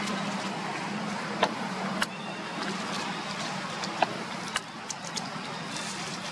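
Dry leaf litter crackling in about six short, sharp clicks as young macaques scuffle and scamper over the ground, against a steady background drone.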